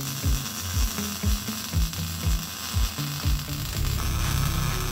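Background music with a steady kick-drum beat, about two beats a second, over a held bass line; a little past three seconds in the beat gives way to a denser buzzing bass. Under it runs a steady high hiss that fits the MIG welding arc.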